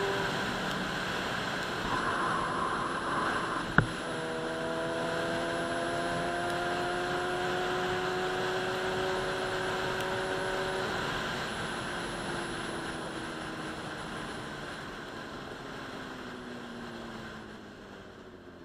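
Sportbike engine running at a steady road speed under a rush of wind, its pitch creeping slowly upward. Then the pitch slides down and the sound fades over the last several seconds. A single sharp click comes about four seconds in.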